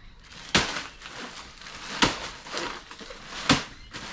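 A bag of ice being struck hard to break up the ice inside: three sharp thuds about a second and a half apart.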